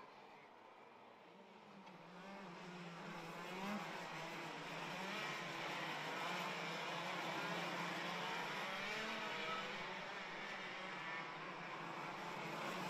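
A pack of 175 cc two-stroke X30 Super Shifter racing karts running together, several engines overlapping and rising and falling in pitch as they rev and change gear. The sound builds up over the first few seconds as the karts come closer.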